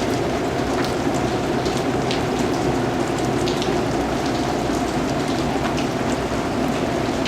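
Steady rain falling on a surface, with a continuous hiss and many individual drops pattering.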